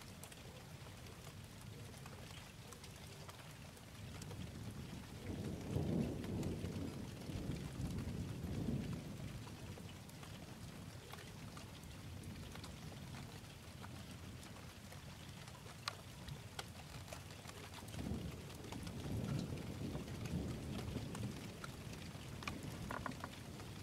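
Steady rain with two long rolls of thunder, one about a quarter of the way in and another near three-quarters through.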